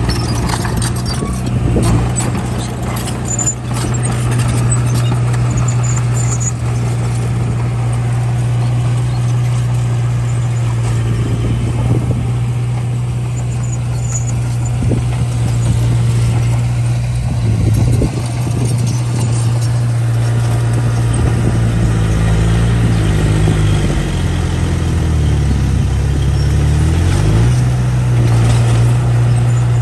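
Small bulldozer's diesel engine running steadily, with occasional clanks from the machine; near the end the engine note sags lower for a few seconds and then climbs back.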